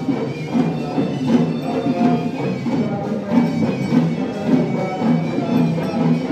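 Traditional music with a regular drumbeat under a sustained, reedy wind-instrument melody.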